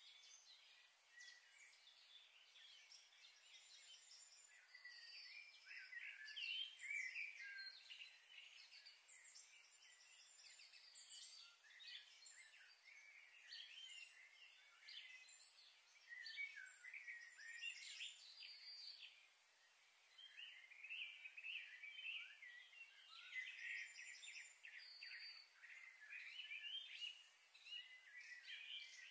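Faint twittering of many small birds: short, varied chirps overlapping one another over a soft background hiss.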